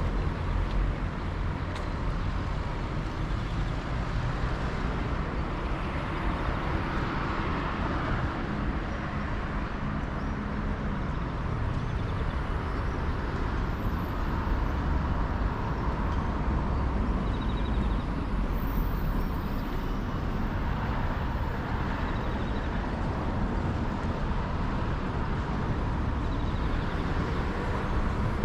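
Steady outdoor street ambience: a continuous low rumble with an even hiss above it, no single event standing out.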